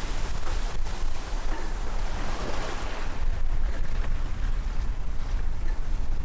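Wind buffeting the microphone, a steady low rumble, over the rush and splash of water along a sailboat's hull while it is under sail.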